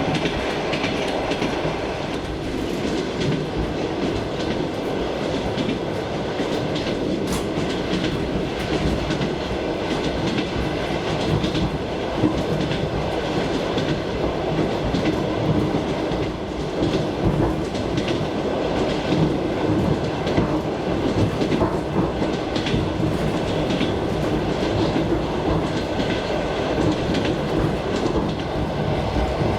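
Suburban passenger train heard from inside the carriage while under way: a steady rumble of the running train, with the clatter of its wheels over the rails.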